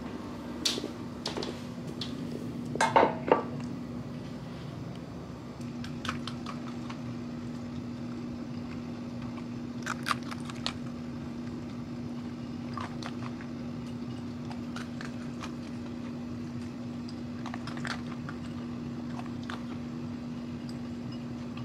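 Cavapoo dog eating dry kibble from a bowl: scattered crunches and clinks of the bowl, the loudest cluster about three seconds in, over a steady low hum.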